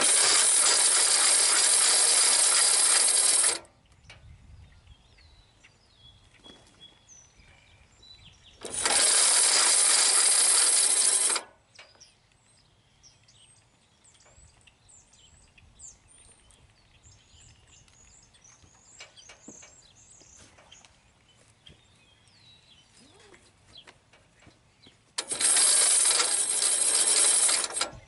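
Hand winch on a Wood-Mizer LT15GO sawmill free-spooling, its drum and gears spinning as the cable is pulled off: three loud runs of about two to three seconds each, starting and stopping abruptly.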